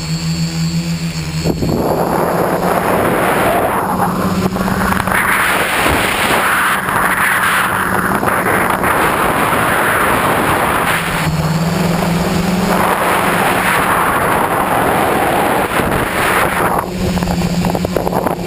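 Tricopter's electric motors and propellers humming in flight, the pitch stepping up and down a few times as the throttle changes, under loud wind rush over the onboard camera's microphone.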